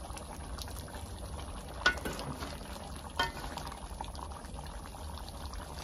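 Pot of curry crab simmering and bubbling as it cooks down, stirred with a wooden spoon, with two short knocks about two and three seconds in.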